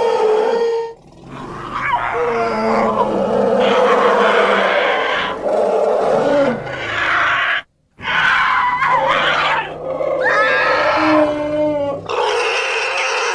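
Elephant trumpeting and roaring calls, used as a creature sound effect: a string of loud calls a second or few long, with pitch sliding up and down, broken by a short silent gap about eight seconds in.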